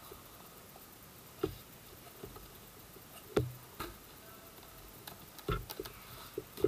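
Cardboard box packaging being handled: scattered soft taps and knocks as the box insert is lifted and turned, with sharper knocks about three and a half seconds in and near the end.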